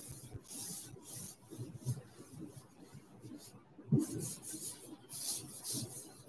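Blackboard duster rubbing across the chalkboard in repeated short strokes, wiping off chalk writing, with a knock just before four seconds in.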